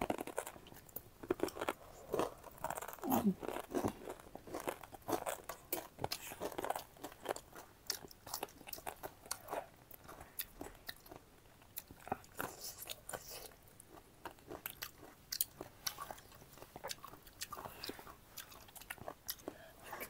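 A person chewing crunchy food close to the microphone, with many small crisp crunches and bites coming irregularly throughout.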